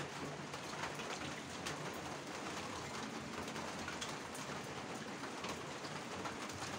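A steady, even hiss with scattered faint ticks.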